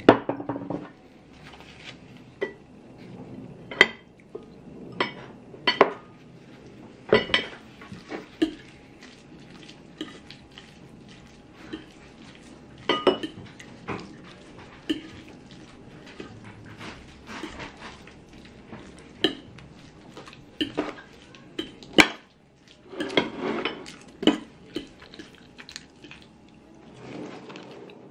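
Cutlery clinking and scraping against ceramic plates and glassware while eating, in irregular sharp clicks and taps, with one louder clink a little past two-thirds through. A faint steady hum sits underneath.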